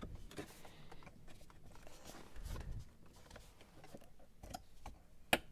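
Faint rustling and small plastic clicks as a hand works the glovebox damper latch behind a Land Rover Defender's glove box, with a soft thump about halfway and one sharp click near the end.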